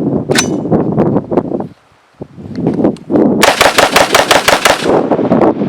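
A dirt-fouled AR-15 in 5.56 fired rapidly, about a dozen shots in roughly a second and a half, over wind noise on the microphone. The rifle keeps cycling through the string despite the dirt packed into it.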